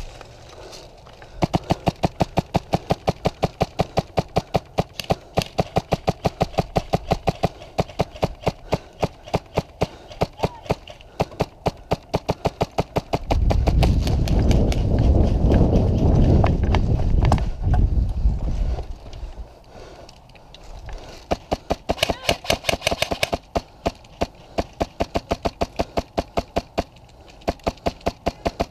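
Airsoft gun firing long strings of rapid, evenly spaced shots, several a second. About halfway through the shooting stops for a loud rush of movement and wind noise lasting some six seconds, then the rapid shots start again.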